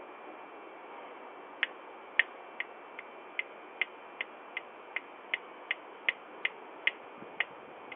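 Sharp, evenly spaced ticks, about two and a half a second, starting about one and a half seconds in, over a steady microphone hiss.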